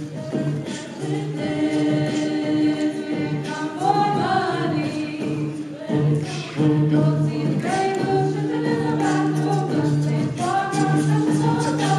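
A group of voices singing held notes in harmony, with no clear words, as a cappella vocal music.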